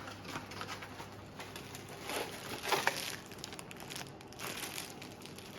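Packaging being handled: crinkling and rustling in a few short bursts, with scattered light clicks.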